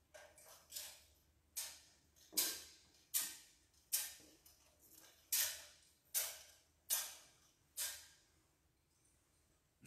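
Thurible chains clinking against the censer as it is swung, about nine sharp clinks, one roughly every 0.8 s, each ringing briefly in the church. They stop shortly before the end.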